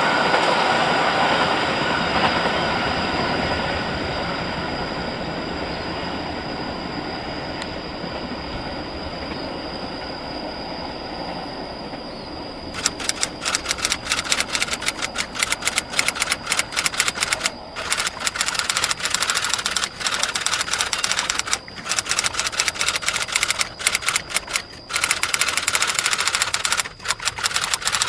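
A passing train's rumble and wheel noise fading steadily as it moves away. About thirteen seconds in, a rapid, dense clicking starts abruptly and runs on in uneven spells with brief gaps.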